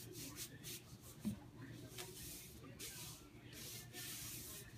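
Athletic tape being pulled off the roll and wrapped around an ankle, with hands rubbing it down: a series of short, scratchy rasps. A brief low bump comes about a second in.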